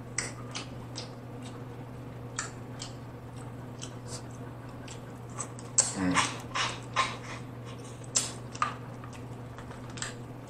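Close-up mouth sounds of eating snow crab meat: scattered wet lip smacks, sucking and chewing clicks, busiest about six seconds in, where a short hummed 'mm' falls in pitch.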